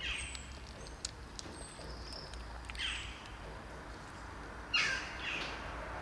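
Birds calling: three short falling calls about two to three seconds apart, the last and loudest near the end, with thin high chirps in between.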